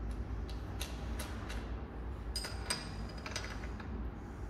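Light metallic clicks and clinks of open-end spanners on the front axle nuts of an electric scooter as the nuts are tightened. The clicks come irregularly, two near the middle ringing briefly, over a low steady hum.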